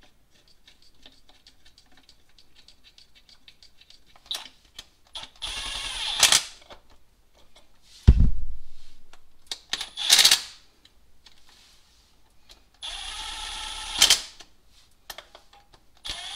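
Small cordless power tool running in four short bursts of about a second each, driving in the bolts of an engine's water outlet housing. Faint fast ticking comes before the first burst, and a single heavy thump sounds about eight seconds in.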